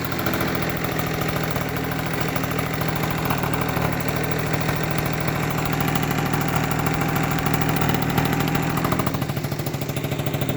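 Small bike engine running steadily through a newly fitted aftermarket exhaust pipe, with a rapid, even exhaust pulse. It eases off slightly near the end.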